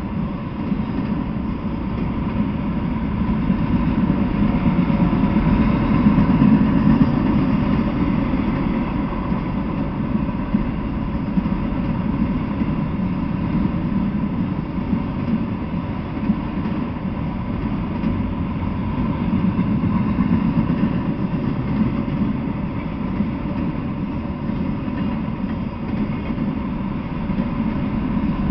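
Freight train of autorack cars rolling past on the track: a steady rumble of steel wheels on rails that neither starts nor stops, heard through a trail camera's small microphone.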